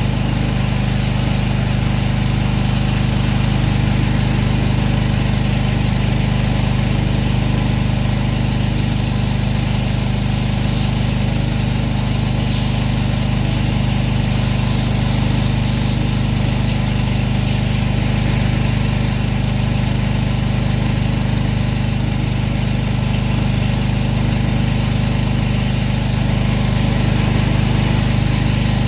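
Pressure washer's gas engine running steadily at a constant speed, with a hiss in the highs that swells and fades.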